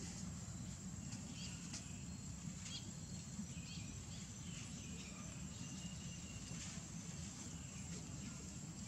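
Outdoor ambience: a steady low rumble with faint, scattered high chirps and ticks.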